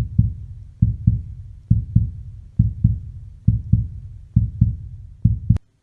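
A slow heartbeat: seven low lub-dub double thumps, just under a second apart. It cuts off suddenly with a sharp click near the end.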